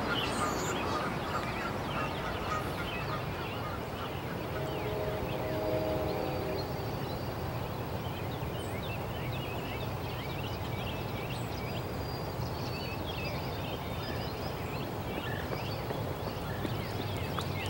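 Outdoor ambience: many small birds chirping over a steady low rumble. A drawn-out, honk-like tone sounds about four to six seconds in.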